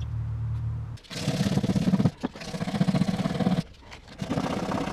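Rapid back-and-forth scraping by hand on the bare steel inner fender panel of a 1974 Plymouth Valiant, roughing up paint and rust to bare metal for an electrical ground point. There are two spells of scraping with a short break near the middle, after a low steady hum in the first second.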